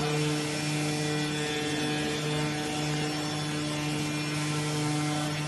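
Vacuum suction blower of an AOKE flatbed cutting plotter running steadily, holding the sheet down on the felt cutting bed: a constant hum with a hiss over it.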